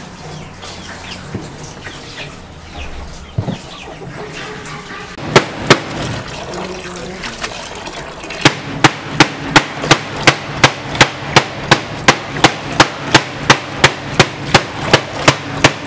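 Sharp knocking strikes on a hard surface: two single knocks about five seconds in, then from about eight seconds a steady rhythm of roughly three strikes a second. Before the knocks, a soft hiss with faint bird calls.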